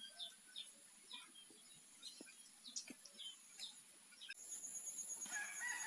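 Faint bird chirps, short falling notes repeated every half second or so, over a thin steady high tone. About four seconds in, a fast high trill and more chirping join.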